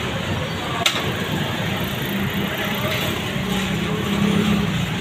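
Steady engine rumble of motor vehicles running close by, with a single sharp click about a second in.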